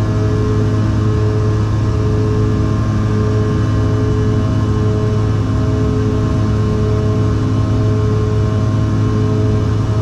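Cabin noise of a CRJ-700 during the climb after takeoff: a steady engine drone from its two rear-mounted GE CF34 turbofans. It has a strong low hum and several steady whining tones above it, one of which comes and goes in a slow beat about once a second.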